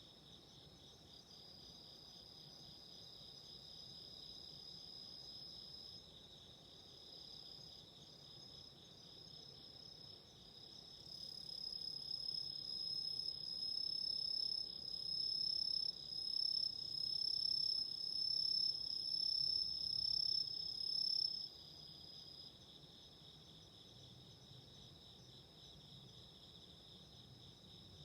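A chorus of autumn insects calling steadily: one high continuous trill over a faster pulsing one. About eleven seconds in, a louder, nearer insect's high unbroken trill joins, and it cuts off suddenly about ten seconds later.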